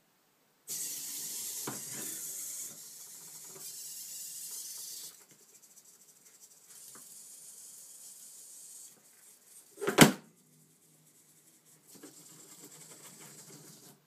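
Futaba RBT-1 humanoid robot's servo motors whirring in several bursts of high-pitched buzz as it moves through its routine. One loud, sharp knock comes about ten seconds in.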